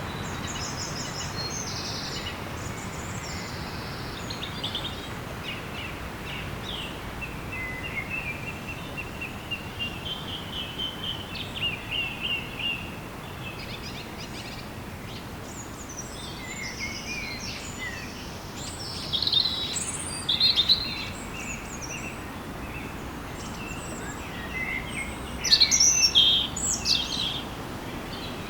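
Several small birds singing and chirping over a steady background hiss: a run of quick repeated notes about a third of the way in, and louder bursts of chirps about two-thirds of the way in and again near the end.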